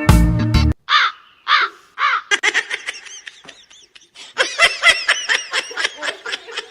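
A fast series of short, high chirping calls from an animal, several a second, starting with two separate falling calls. Music cuts off less than a second in.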